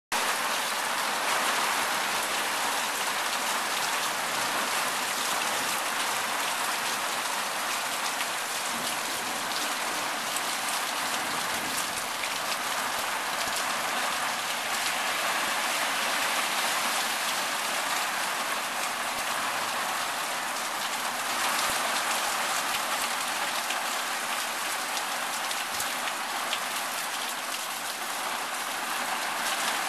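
Heavy rain falling steadily: an even hiss of rain on the street and awning, with water streaming off the awning's edge and fine ticks of individual drops.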